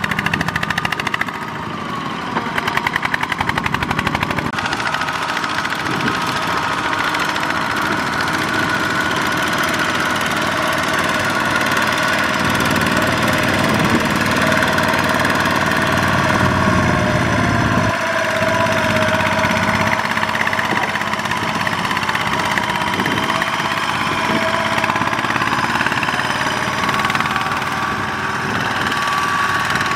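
Single-cylinder diesel engine of a two-wheel walking tractor running steadily under load, hauling a trailer of rice sacks through mud.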